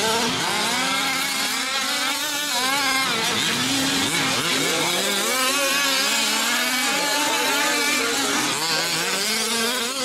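Several small two-stroke gas engines of 5th-scale RC racing trucks running on track together, their pitches rising and falling over and over as they rev and back off.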